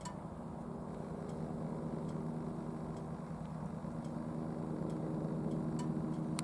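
Steady low hum of an idling engine, with a few faint ticks.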